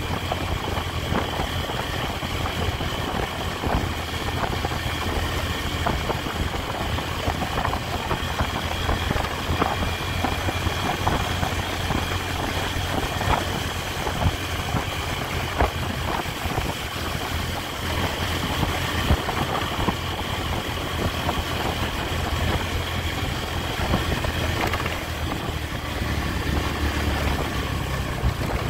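Honda Tiger's single-cylinder four-stroke engine running at a steady cruise, heard from the rider's seat with wind and road noise on the microphone.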